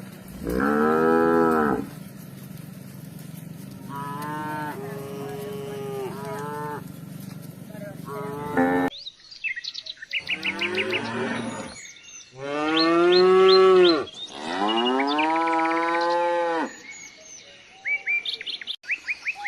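Cattle mooing several times in long, drawn-out calls, the loudest two back to back in the second half. Small birds chirp in quick runs between the later calls.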